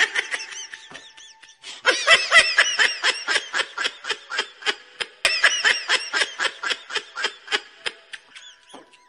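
High-pitched giggling laugh, a rapid string of short ha-ha pulses at about five or six a second. It comes in two long runs with a brief break about five seconds in.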